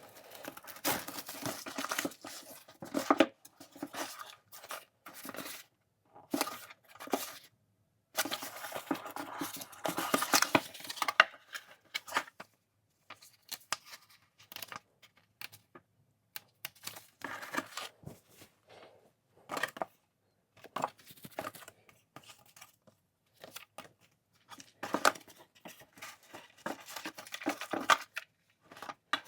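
Packaging being torn and handled, in irregular bursts of tearing, crinkling and rustling separated by short pauses.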